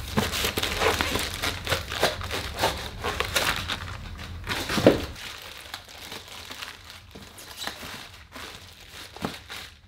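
Plastic packaging crinkling and rustling as items are handled and pulled out of a cardboard shipping box, with a dull thump about five seconds in. After that the rustling is quieter, with a couple of light knocks near the end.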